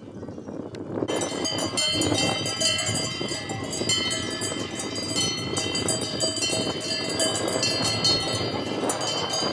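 Many cowbells clanging together in a continuous jangle, cutting in abruptly about a second in over a low outdoor rumble.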